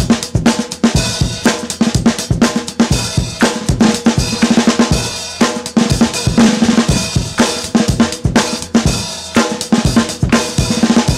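Band music led by a drum kit keeping a steady, quick beat on snare, bass drum and cymbals, over sustained pitched instruments.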